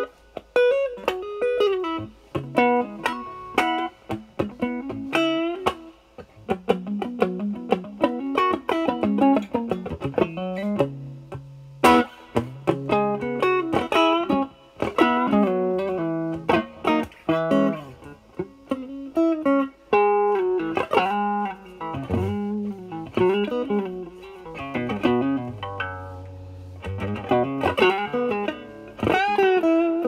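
Stratocaster with single-coil Alnico pickups played through a 1986 ProCo RAT2 distortion pedal (LM308N chip) into a Marshall Valvestate amp's clean channel. The distortion knob is set low, at about nine to ten o'clock. The playing is improvised blues-style single-note licks and short phrases with brief pauses, and there is a sharp click about twelve seconds in.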